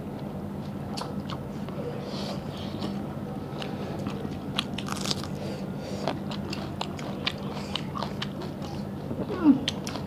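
Close-miked eating sounds of mutton curry and rice eaten by hand: wet chewing with many small clicks, over a steady low hum. Near the end a brief sound sliding down in pitch is the loudest moment.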